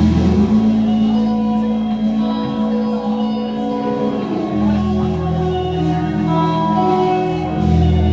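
Live rock band playing a slow instrumental passage, with electric guitars and keyboard holding sustained chords over bass notes. The low bass drops away after about half a second and returns about four and a half seconds in.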